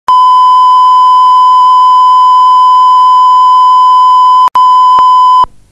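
Loud, steady 1 kHz line-up test tone, the reference tone laid at the head of a broadcast tape. It drops out for an instant with a click about four and a half seconds in, clicks again a moment later, and cuts off suddenly near the end.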